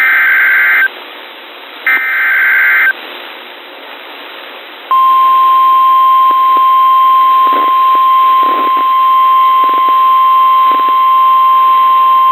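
Emergency Alert System SAME header: the last two of three one-second screechy data bursts, then a hiss of radio static, then from about 5 seconds in the steady single-pitch NOAA Weather Radio warning alarm tone, signalling that a new warning is about to be read.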